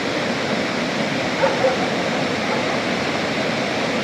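Steady, heavy rush of water, like downpour rain or fast-flowing floodwater, running without a break.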